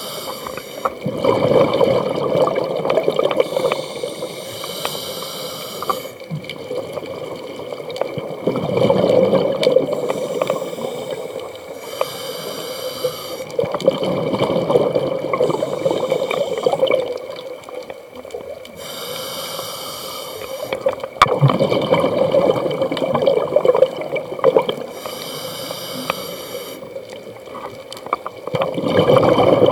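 Scuba diver breathing through a regulator: a hiss on each inhale alternates with the rush of exhaled bubbles. Slow, regular breaths, with five bubbling exhalations.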